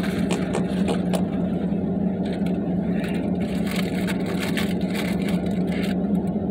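Steady low hum of a pickup truck running while parked, heard from inside the cab, with a few light clicks and rustles of food wrappers.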